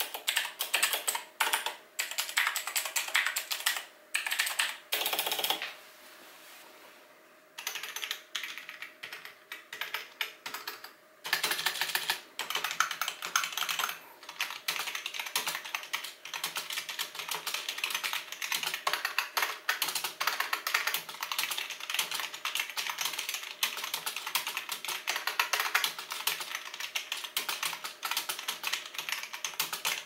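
Fast typing on a Razer BlackWidow X Chroma with clicky Razer Green mechanical switches. After about five seconds it breaks into a short lull, and then fast typing resumes on a Forev FV-Q1 membrane 'mechanical feel' keyboard.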